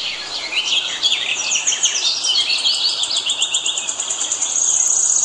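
Several birds chirping at once, many quick overlapping calls, with a fast, even, high-pitched trill that grows louder near the end.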